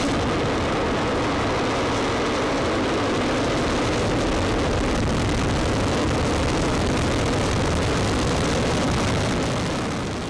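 Long March 2D rocket's first-stage engines at liftoff: a loud, steady rumbling rush of exhaust noise that eases off slightly near the end, then stops abruptly.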